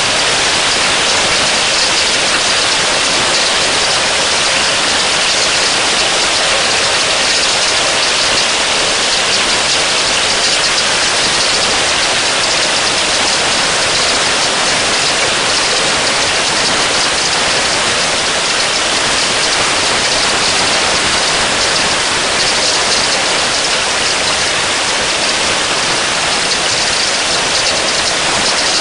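Heavy rain falling onto a pond's surface: a loud, steady hiss that does not let up.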